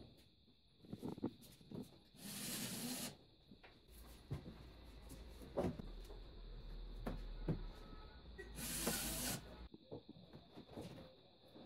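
Plastic ceiling panels being handled and pushed into place: two scraping rushes about a second long, one a couple of seconds in and one near the end, with scattered light knocks and clicks of plastic.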